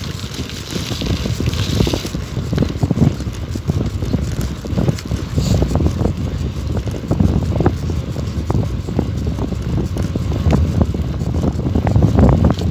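Wind buffeting the microphone over the rumble of a bicycle rolling on rough asphalt, with frequent small knocks and rattles.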